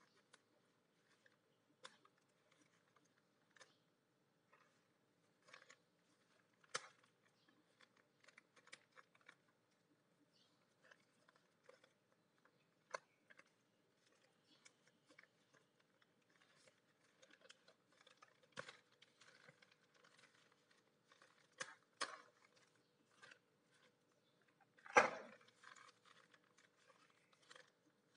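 Clear plastic parts bag crinkling and crackling as it is handled and turned over, in scattered short crackles and clicks, with one louder crinkle near the end.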